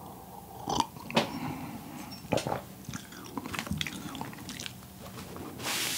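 Close-miked mouth sounds of sipping and swallowing coffee, with scattered small clicks, then a brief rustle near the end.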